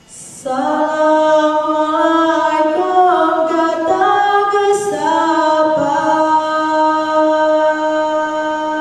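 Female voices singing a Saman dance chant a cappella: a slow melody that steps up and down through a few notes, then settles on one long held note.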